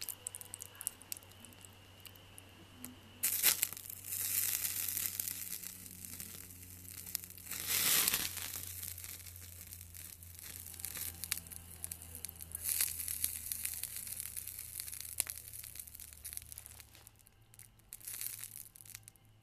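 Hot molten candle wax crackling and spitting as water hits it. It starts suddenly a few seconds in, flares louder for a moment partway through, then goes on as scattered crackles that thin out near the end.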